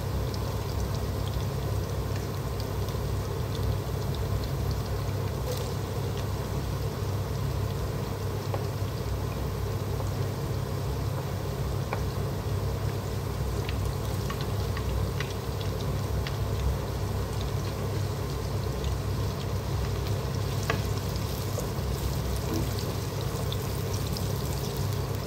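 Chopped garlic, ginger and shallots frying in oil and butter in a pot: a steady sizzle over a low hum, with scattered light clicks that come more often near the end as a wooden spoon stirs.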